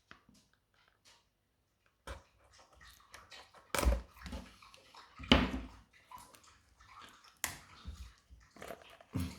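Cardboard booster box being handled and opened: rustling and scraping, with a few sharp knocks about 4, 5.5 and 7.5 seconds in.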